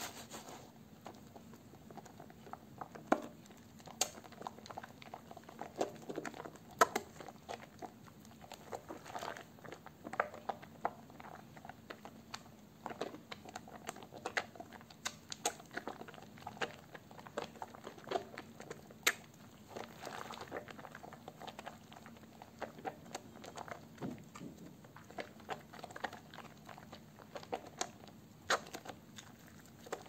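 Soaked, softened bar soap being lathered by hand into thick foam: continuous wet squishing and squelching with irregular small clicks and crackles of bursting bubbles, and a few sharper ticks.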